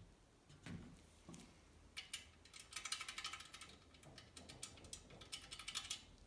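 A few separate light knocks, then from about two seconds in a rapid run of small metallic clicks from a hand-worked mechanism, stopping shortly before the end.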